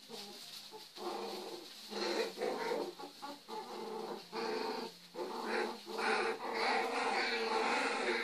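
Several puppies growling and yapping at each other as they play-fight. The sound is nearly continuous from about a second in, with brief gaps.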